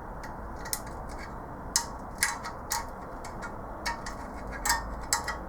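Irregular sharp metallic clicks and clinks, about eight of them, from a homemade valve spring compressor and valve-train parts being worked while a valve spring is compressed and its keepers released.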